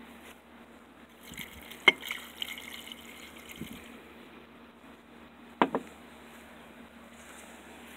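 Liquid being poured and splashing into a container for about two seconds, with two sharp knocks of a container set down on the table, the first about two seconds in and a louder one a little past the middle.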